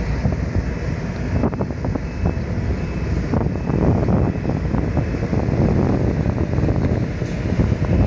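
Mitsubishi motor grader's diesel engine running steadily as the machine grades the ground, with wind buffeting the microphone.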